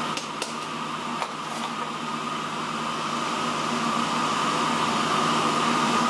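Steady hum of a running fan with a high whine, growing slightly louder, and a few light taps in the first second or so.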